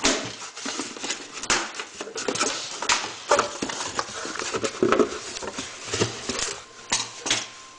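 Cardboard box being cut open with scissors and its flaps pulled back: irregular scraping, tearing and rustling of cardboard and packing tape, with several sharp knocks.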